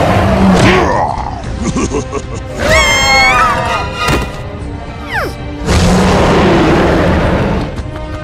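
Cartoon fight sound effects over background music: two long, loud booms of noise, one at the start and one about six seconds in, with a short high wavering cartoon cry near three seconds.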